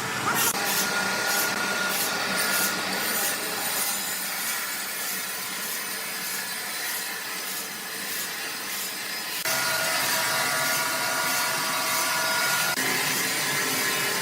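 Sawmill machinery running, with a saw cutting wood: a steady mechanical din carrying a few high whining tones. A rhythmic clatter of about three strokes a second runs over the first few seconds, and the sound changes abruptly about nine and a half seconds in and again near the end.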